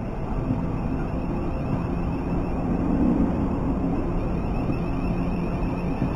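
Southern Class 455 electric multiple unit running slowly past along the platform: wheels rumbling on the rails under a steady low hum.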